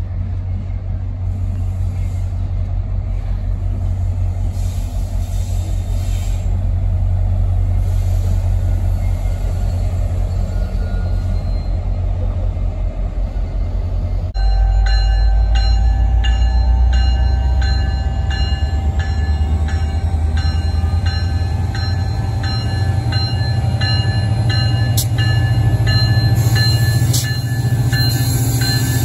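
MBTA commuter rail diesel locomotive approaching slowly, its engine a steady low drone that grows louder as it nears. About halfway through, its warning bell starts ringing in a steady repeating beat and keeps going as the train rolls closer.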